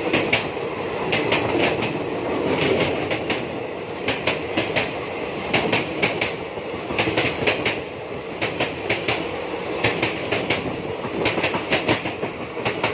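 Coaches of the Prasanthi Express passenger train passing close by: a steady rolling rumble, with the wheels clacking over the rail joints in quick groups of clicks about every second and a half.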